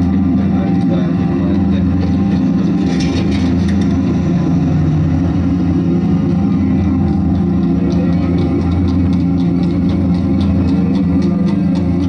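Mechanically produced music from an antique nickelodeon machine: a steady, loud low drone with quick clicks and clanks running over it.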